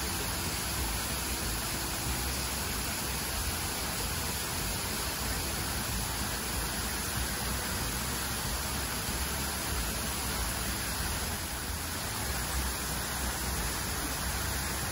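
Steady rushing noise, an even hiss with a low rumble underneath and no distinct events.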